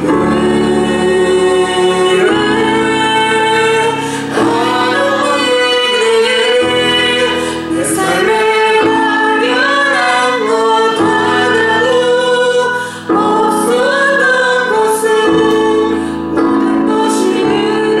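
Worship praise team singing a gospel song, women's voices prominent, over sustained instrumental chords.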